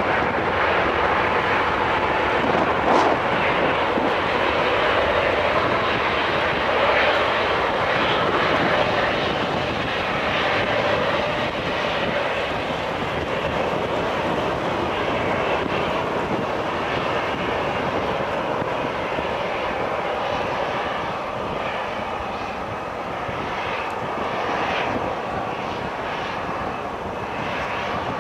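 Boeing 737-800's CFM56-7B turbofan engines running at taxi power as the airliner taxis past: a steady jet whine and rush that slowly fades as it moves away.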